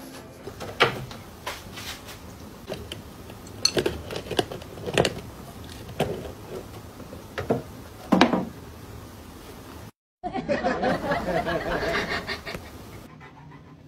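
A volleyball being hit again and again, sharp slaps irregularly about a second apart. After a sudden break near the ten-second mark comes a few seconds of denser, jittery sound.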